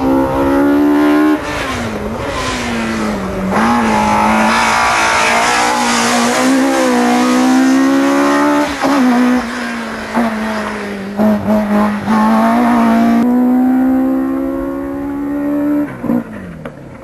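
Car engine revved hard through a cone slalom, its pitch climbing and dropping repeatedly with gear changes and lifts off the throttle, with tyre squeal as the car slides around the cones. Near the end the engine pitch falls away.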